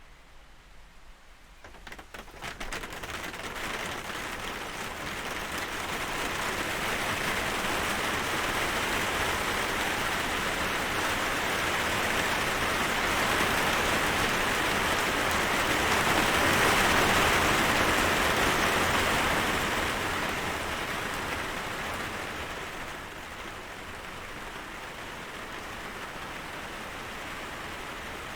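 Steady rain falling, a dense even hiss. It swells in over the first few seconds, is heaviest a little past the middle, then eases off somewhat.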